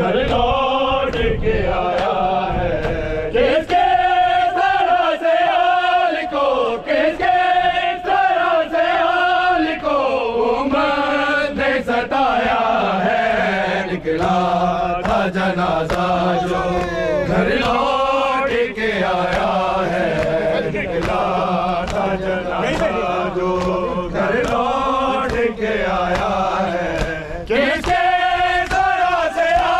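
Men chanting a noha, a mourning lament, in a melodic call-and-response, over a steady beat of open hands striking chests in matam.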